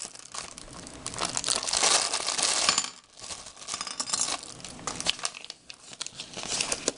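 Clear plastic packaging bag crinkling as hands handle it and pull out the parts, in irregular rustling bursts with a few sharp clicks.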